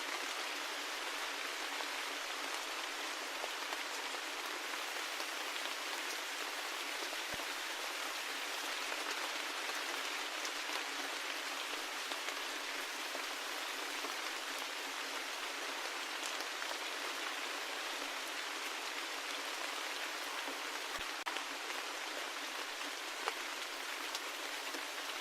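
Steady rain: an even hiss of falling rain with scattered individual drops ticking through it.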